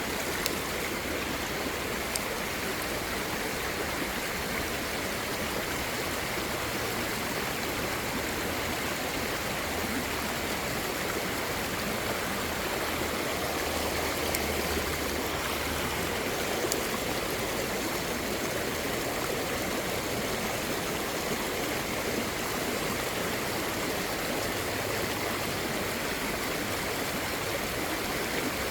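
Creek water flowing steadily over rocks, an even rushing babble, with a few faint clicks.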